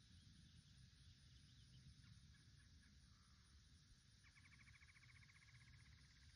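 Near silence: a faint low rumble of wind, and about four seconds in a faint rapid trill lasting about two seconds.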